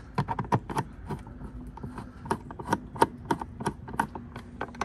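Ratcheting hand driver clicking, about four or five clicks a second, unevenly spaced, as a T30 Torx screw is hand-tightened into the tail light mount.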